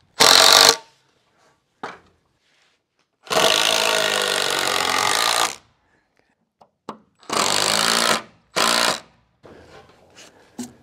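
Cordless power driver running in four bursts, a short one, then one steady run of about two seconds, then two short ones, as it drives screws through a wooden brace into a roof truss.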